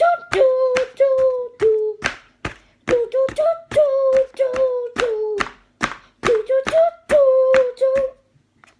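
A child singing a wordless "doo doo" tune: short notes at about two a second, each held at a steady pitch with a sharp start. There is a brief pause past the middle, and the tune stops just before the end.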